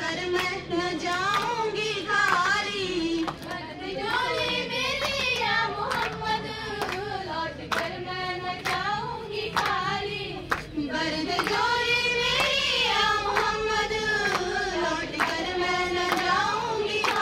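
Girls singing a qawwali through a microphone, the melody wavering and held on long notes, over a steady rhythm of hand claps from the group.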